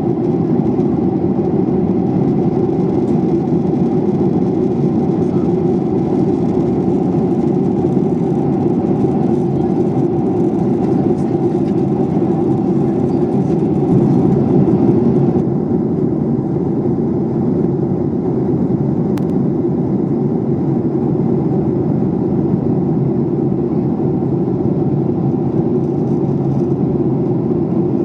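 Steady rushing noise of a jet airliner's engines and airflow, heard inside the passenger cabin in flight. The faint high hiss drops a little about halfway through.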